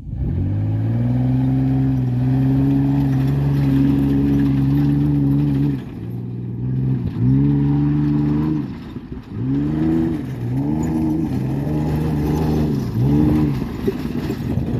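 Ford Ranger prerunner truck's engine revving hard while driving on dirt: held at high revs for about six seconds, then a string of rev rises and drops, four or five quick ones near the end.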